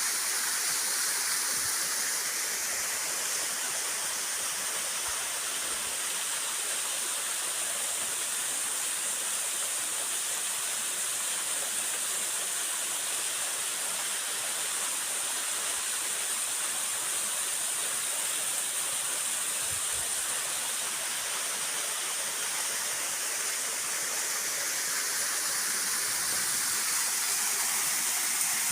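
Waterfall: a steady, unbroken noise of falling water.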